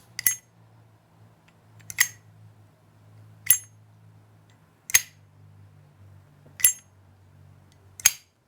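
An Armor Zippo windproof lighter from 2016, its hinged metal lid flipped open and snapped shut in turn. Six sharp metallic clicks come about every one and a half seconds, each with a brief high ring.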